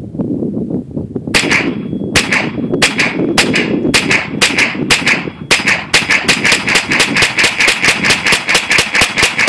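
HK MP5-style .22 LR rimfire rifle firing a long string of shots, starting about a second in at roughly two or three shots a second, then speeding up to about five a second for the second half.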